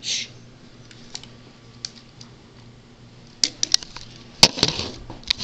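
Plastic LEGO pieces clicking and clattering on a wooden tabletop as the toy vehicles and minifigures are handled. A few light clicks come first, then a quick run of sharper clicks from a little past the middle. A brief hiss at the very start.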